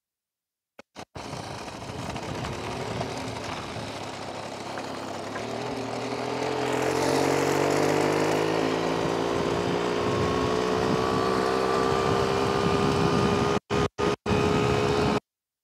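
VéloSolex Flash moped's small two-stroke engine running as it rides along, louder as it comes closer and its pitch climbing steadily as it picks up speed. The sound cuts out briefly twice near the end and then stops suddenly.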